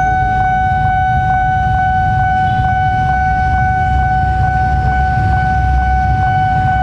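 Level-crossing warning signal sounding a loud, steady tone with a faint regular tick about twice a second, over the low rumble of an approaching KAI diesel-electric locomotive that grows stronger in the second half.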